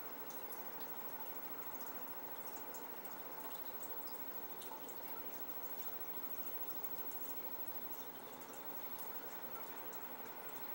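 Water trickling and dripping steadily in a fish tank, with many small quick splashes.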